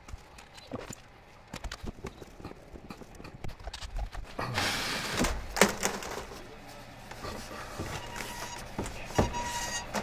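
Irregular knocks and clicks, with a rushing noise coming in about halfway through.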